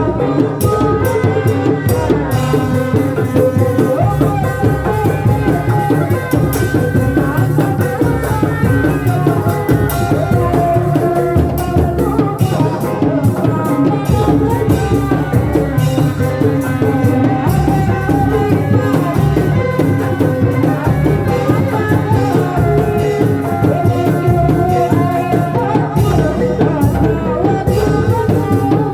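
Live Sundanese reak folk music accompanying a kuda lumping performance: drums and rattling percussion under a continuous pitched melody, playing steadily and loudly without a break.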